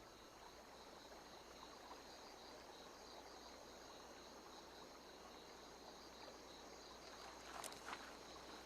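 Faint outdoor ambience: a low steady hiss with a high, even chirring of insects such as crickets, and a few soft clicks or rustles near the end.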